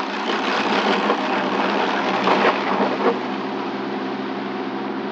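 A steady mechanical running noise with a low hum, somewhat louder over the first three seconds.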